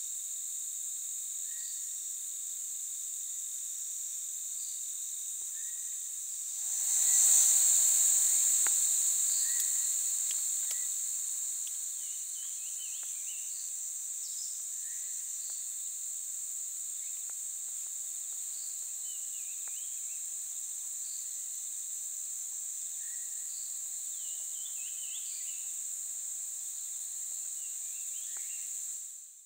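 Steady high-pitched insect chorus, with a second, thinner drone beneath it and scattered short, faint chirps. About seven seconds in, a louder rush swells up suddenly and fades away over several seconds.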